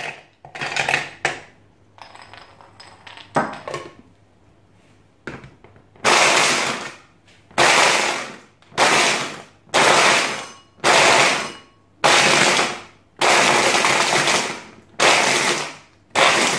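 A few clatters of ice cubes and plastic as a mini electric chopper's bowl is loaded and its motor head fitted, then the chopper pulsed about nine times, each press a roughly one-second burst of its blade crushing the ice.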